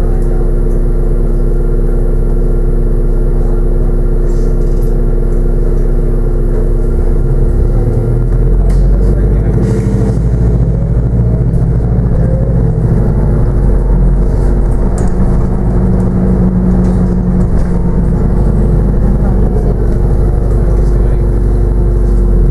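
Interior sound of a New Routemaster hybrid double-decker bus on the move, heard from the upper deck: a steady drivetrain drone with a constant humming tone. The low drone grows louder about eight seconds in as the bus pulls harder.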